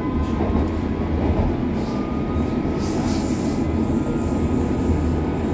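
Berlin U-Bahn F92 train running through a tunnel, heard from inside the car. A steady loud rumble of wheels on track, with faint thin whining tones from the drive above it.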